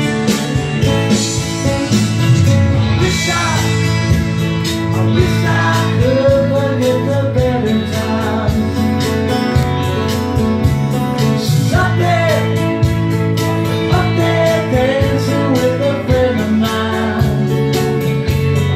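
Two acoustic guitars strummed in a steady rhythm, with a man singing the melody over them: a live acoustic duo performance.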